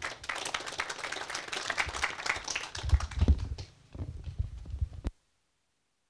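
Audience applauding, a dense patter of claps with a few low thumps partway through; it cuts off suddenly about five seconds in.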